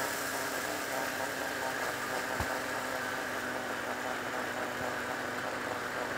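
Electric mixer grinder running steadily, its motor and blades grinding dry roasted flax seeds with a little salt into a coarse powder.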